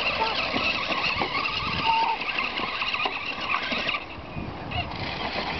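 Radio-controlled car's motor running and revving as the car drives over loose gravel. It eases off about four seconds in and picks up again near the end.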